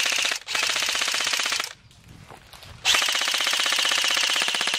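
Airsoft M16-style rifle firing full-auto bursts: rapid, even clicking with a high steady whine under it. A short burst ends just after the start, another runs about a second, and after a pause a longer burst of nearly two seconds follows.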